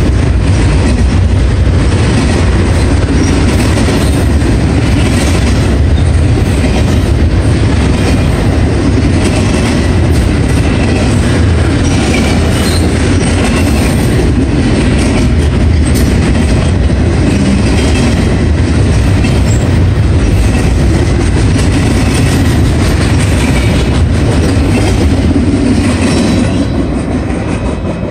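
Norfolk Southern intermodal freight train rolling past close by: a loud, steady roar of steel wheels on rail with rapid clicking over the rail joints, starting to fade near the end.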